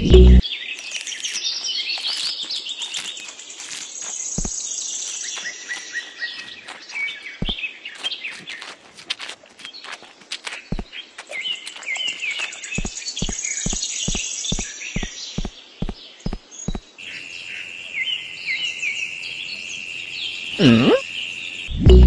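Birds chirping and calling, many short overlapping chirps, with scattered sharp clicks and a run of evenly spaced clicks, about two or three a second, midway through. Near the end comes a quick swoop down in pitch and back up.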